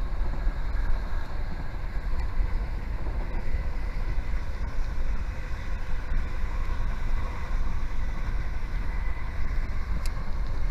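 Passenger train running steadily, heard at a carriage window: a deep, even rumble from the wheels and track, with wind buffeting the microphone and a few faint clicks.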